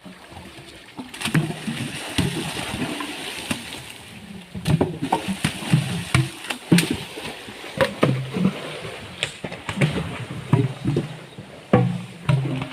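Water splashing and sloshing, broken by repeated sharp knocks as sengon logs are hauled through a river.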